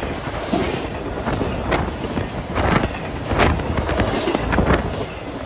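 Intermodal freight train rolling past close by, its trailer and container cars making a steady rumble of steel wheels on rail, broken by irregular sharp clacks.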